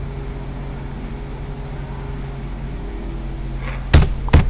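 Steady low electrical hum with faint room noise, then two sharp, loud clicks close together near the end.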